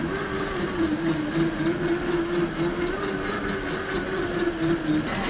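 Axial SCX10 II RC crawler's 550 brushed electric motor and gear drivetrain whining at a steady, slightly wavering pitch as it drives, with a light rapid ticking underneath. The whine cuts off near the end.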